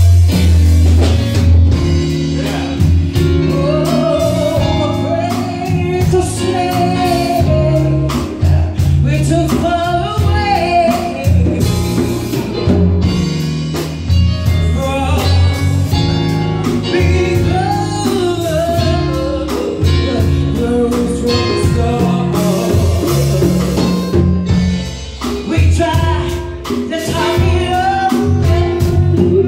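Live band playing a song with a singer on microphone, backed by drum kit and congas, loud and continuous.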